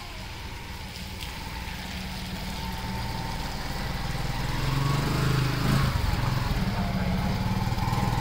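A motor engine running steadily, growing louder over the first five seconds or so and then holding at that level.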